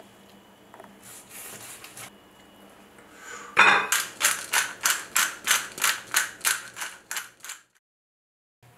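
Hand-twisted pepper mill grinding, with a quick run of crunching turns at about four a second for roughly four seconds before it cuts off to silence.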